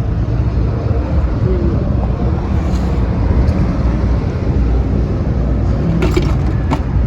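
An engine or machine running with a steady low hum, with a few light clicks about six seconds in.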